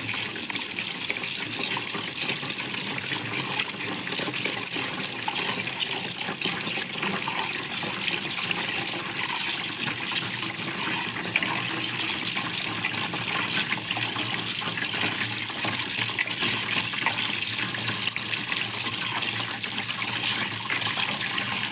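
Kitchen tap running steadily into a plastic bowl of minced mutton in a steel sink, the water splashing as hands rinse and work the meat.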